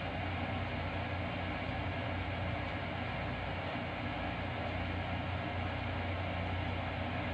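Steady machinery drone: a low, even hum under a constant rushing noise, with no change.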